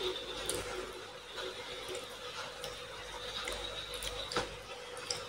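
Eating sounds: scattered small clicks and soft squishes as rice and fish are picked by hand from a plate and chewed, with one sharper click about four seconds in.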